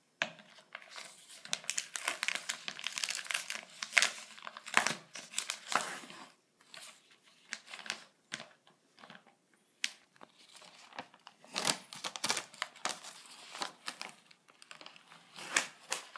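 Plastic pizza packaging crinkling and tearing as it is peeled open by hand, in a run of crackles that thins out for a few seconds about halfway through before picking up again.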